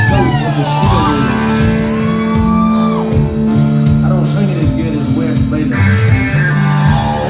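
Live country-rock band playing in a club, with guitars over a steady beat and sustained, gliding notes.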